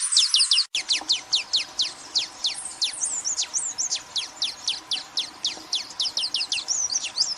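Wine-throated hummingbird calling: a fast, unbroken series of short, high, downward-sweeping notes, about four to five a second. There is a brief cut under a second in, where the recording is spliced.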